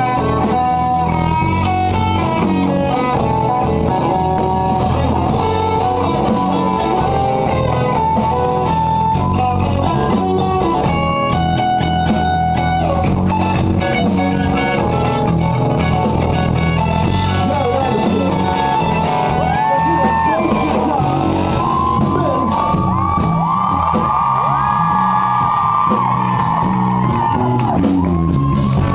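Live rock band playing loud amplified guitar music. In the second half, held notes glide up and down.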